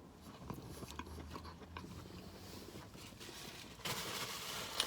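Faint chewing and mouth clicks of a person eating, with a louder steady hiss coming in about four seconds in.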